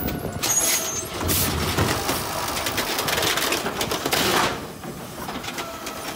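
Automated side-loader garbage truck's hydraulic arm lifting a trash cart and tipping it over the hopper, a running whine mixed with clattering bursts as the cart is raised and shaken out.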